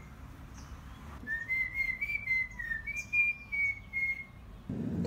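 A run of clear whistled notes, each short and slightly bending in pitch: the tail of one phrase at the start, then a longer phrase of about eight notes from about a second in to about four seconds. A lower steady background noise comes in near the end.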